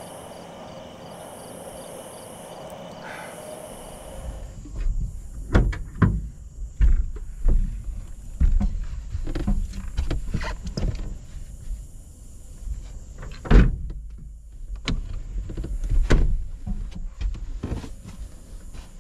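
Night insects calling in a steady pulsing chirp, then from about four seconds in a run of knocks, low thumps and rustling as someone climbs into a pickup truck's bed under its topper, the loudest thumps a few seconds apart.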